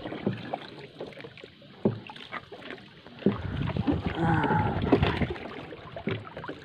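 Water sloshing around a small paddled wooden outrigger boat, with scattered knocks and clicks against the hull and fishing gear. The noise swells for a couple of seconds in the middle.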